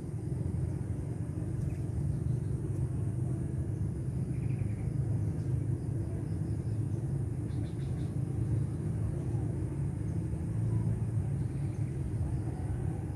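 Lakeside outdoor ambience: a steady low rumble, with a few faint high chirps.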